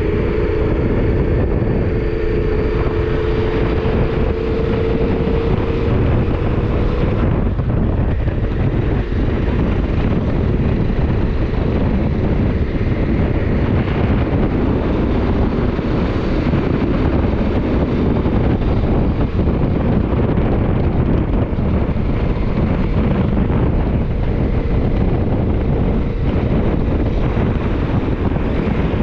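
Motorcycle engine running at a steady note while riding, under loud wind noise on the action-camera microphone. The engine note is clearest for the first several seconds, after which the wind rumble dominates.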